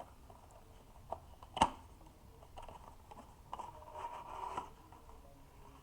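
Light handling noises of small hardware: two sharp clicks about a second and a half in, the second the loudest, then a couple of seconds of soft scraping and rustling, as SSD drives are picked up and handled on a work surface.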